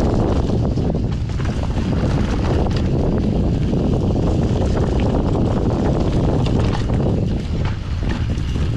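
Wind buffeting the camera microphone over the steady rolling rumble of a mountain bike on a dry, leaf-covered dirt trail, with frequent small clicks and crackles from tyres on leaves and twigs and rattles from the bike.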